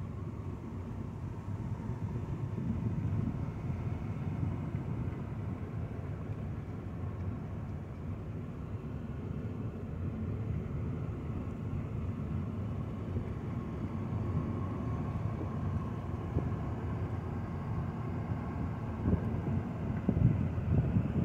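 A car driving along a road: a steady low rumble of tyres and engine, growing louder near the end.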